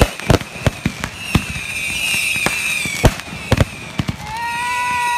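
Fireworks finale barrage: a rapid, irregular run of sharp bangs from bursting shells. Over it come whistling fireworks: a high steady whistle in the middle, then a lower whistle near the end that falls away in pitch.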